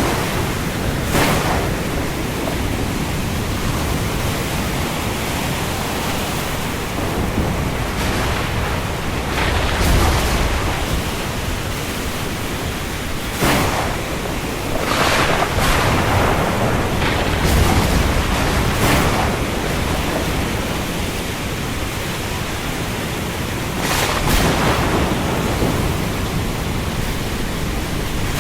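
Steady heavy rain falling on the open sea, a constant rushing hiss, with brief louder surges of splashing water every few seconds.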